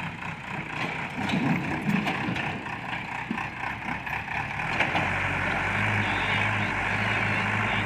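Diesel engine of a JCB 3DX backhoe loader running, with a few knocks in the first few seconds. About five seconds in, the engine note becomes steadier and stronger.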